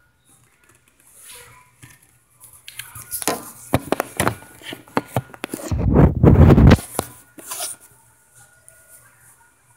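Handling noise on a phone's microphone: rustling, knocks and rubbing as the phone is moved around against hoodie fabric. A loud muffled rumble lasting about a second comes a little past halfway.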